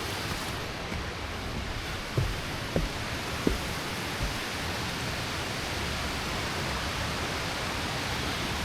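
Steady rush of a fast-flowing mountain stream. A few soft low thumps come about two to three and a half seconds in.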